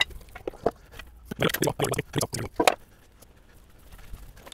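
Hand tools clicking and knocking on the engine as the second cylinder head of a Toyota 2GR-FE V6 is unbolted: an irregular run of light clicks and knocks, about five a second, starting about half a second in and lasting about two seconds.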